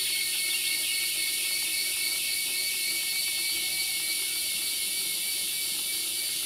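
Steady, high-pitched chorus of insects: a continuous trill with a few constant tones in it.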